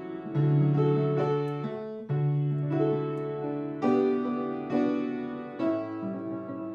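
Slow piano music: chords struck about once a second, each held and fading, over a low bass note.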